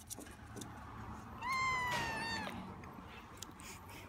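A very young kitten, nursing from a feeding bottle, gives one high meow about a second long, starting about a second and a half in, its pitch falling slightly toward the end.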